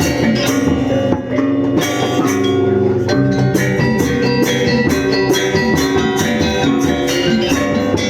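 Background music with a steady beat: a band with guitar and drum kit.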